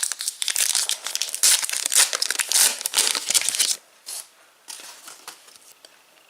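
Foil wrapper of a Panini Adrenalyn XL trading card pack crinkling and tearing as it is opened, dense for about four seconds, then a couple of brief soft rustles.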